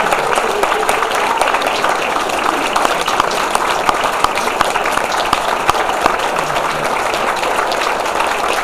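Audience applauding steadily, a dense continuous patter of clapping hands, with a few voices mixed in.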